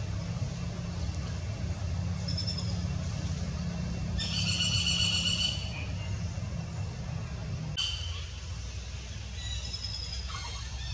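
Several short, high-pitched animal calls, the loudest about four seconds in and lasting about a second and a half, others fainter and briefer. Under them is a steady low rumble that stops about eight seconds in.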